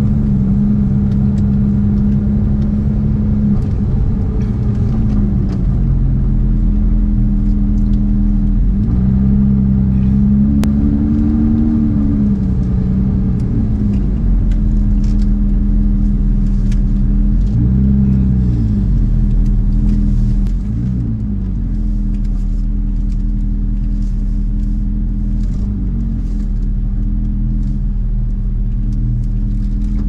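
Porsche 991.2 911 GT3 Touring's naturally aspirated flat-six cruising at steady revs over a low road and tyre rumble. The engine note briefly rises and dips in pitch about a third of the way in and again twice later, and the sound gets slightly quieter about two-thirds of the way through.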